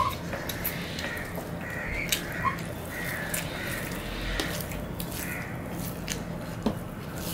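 Eating by hand: fingers gathering and mixing fried rice on a steel plate, with chewing and mouth sounds and a few sharp clicks.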